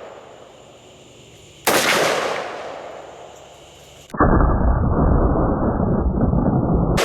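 Magnum Research Desert Eagle L6 .50 AE pistol fired: one sharp shot about two seconds in, echoing away over a second or two. A little over four seconds in, a second blast sets off a loud, dull, muffled rumble that holds for about three seconds.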